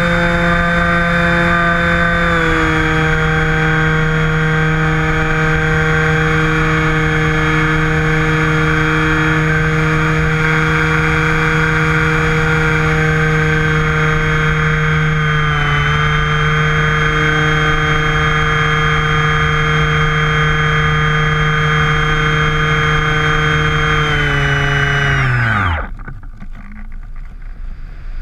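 Radio-controlled airplane's motor and propeller heard from the onboard camera, a steady droning whine at cruising throttle with slight pitch dips a couple of seconds in and midway. Near the end the throttle is cut: the pitch sweeps down to nothing in about a second, leaving wind rushing over the airframe as it glides.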